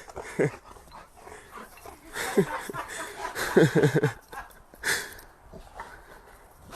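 A dog vocalising in short, pitched sounds that fall in pitch, with a quick run of three or four about three and a half seconds in, and a brief breathy burst soon after.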